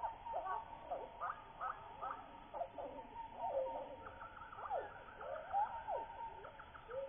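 Many overlapping animal calls: short chirps and whistles that slide up and down, over a steady high tone.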